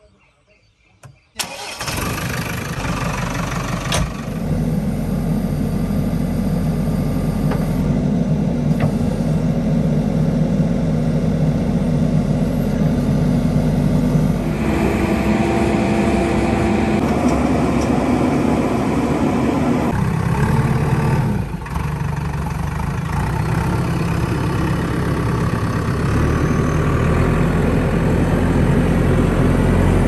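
JCB 3DX backhoe loader's diesel engine starting up about a second in, then running steadily, with a change in its note about halfway through.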